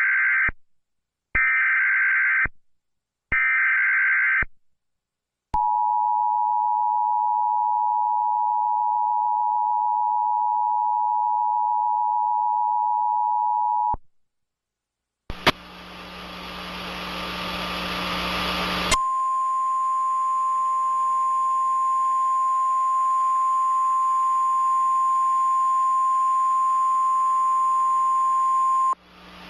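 Emergency Alert System tornado warning tones: three short bursts of warbling SAME data header, then the two-tone attention signal held for about eight seconds. After a brief gap a hiss comes in, and a single steady alert tone sounds over it for about ten seconds.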